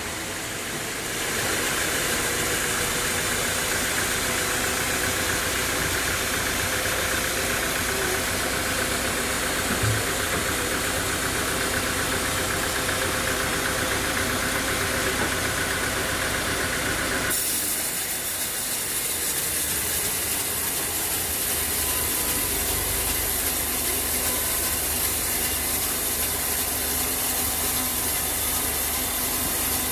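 Sawmill machinery running steadily, an engine with a hissing noise over it; the sound changes abruptly about 17 seconds in.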